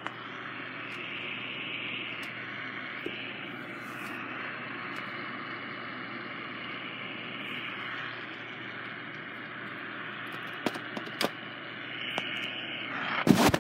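Radio static: a steady hiss from a Hello Kitty radio CD player tuned between stations, with a couple of sharp clicks near the end and a sudden loud burst just before the end as a station comes in.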